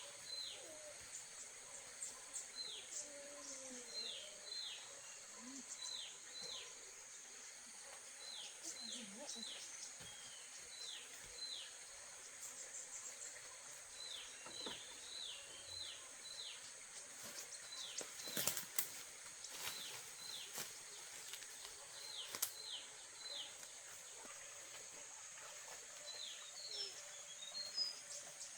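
Forest ambience: a bird calls in short downward-sliding chirps, two or three at a time, again and again over a steady high insect drone. A few sharp knocks come about eighteen seconds in.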